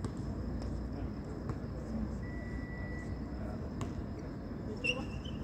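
Outdoor basketball court ambience: a steady low rumble, a few sharp knocks of a basketball bouncing on the concrete court, and faint distant voices.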